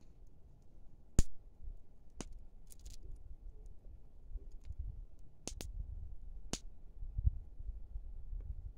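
A handful of sharp clicks and cracks at irregular intervals, the loudest about a second in, over a low uneven rumble.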